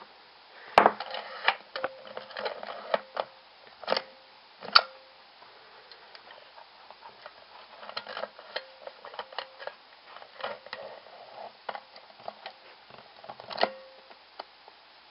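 Irregular clicks, taps and knocks of a plastic nail-art stamping machine and a nail-polish bottle being handled on a table. The sharpest knocks come in the first five seconds, followed by lighter, scattered ticks.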